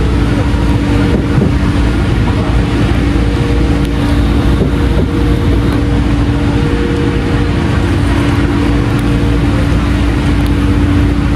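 Passenger train running on the rails: a loud, steady rumble with a constant low hum and no pauses.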